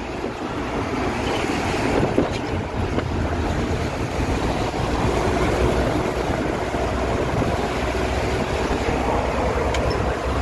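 Steady road noise inside a truck cab at highway speed: engine rumble and tyre noise under a rush of wind on the microphone.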